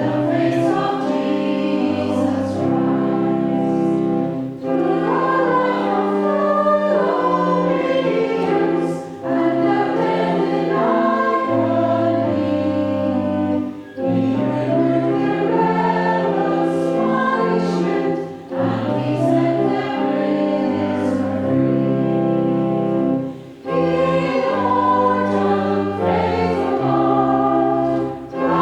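A hymn sung by many voices, in phrases of about four to five seconds with short breaks between them.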